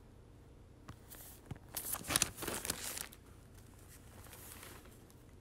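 Rustling and scraping as plastic paint cups are handled, set down and picked up. The sounds come in a short cluster, loudest in the middle, then fade to a faint hiss.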